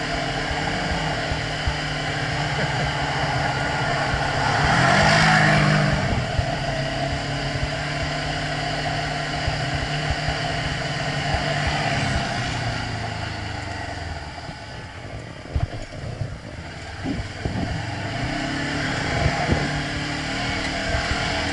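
Side-by-side UTV engine running as it drives along a snowy trail, heard from inside the open cab. The revs rise about five seconds in, then ease off and drop lower in the second half, with scattered knocks near the end.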